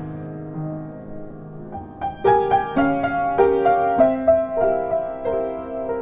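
Background instrumental music with piano. Soft held notes give way to a light piano melody of struck notes about two seconds in.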